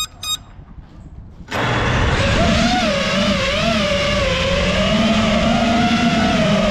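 A last short electronic beep, then about a second and a half in the FPV quad's Xing brushless motors and Gemfan props spin up into a loud whine whose pitch wavers up and down with the throttle as it flies, heard from the camera mounted on the quad.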